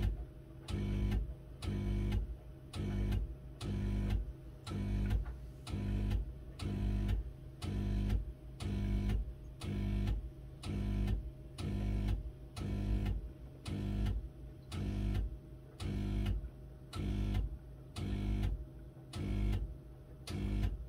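Miele W1 washing machine pulsing with a buzzing hum, about one pulse a second, about twenty in all, stopping right at the end.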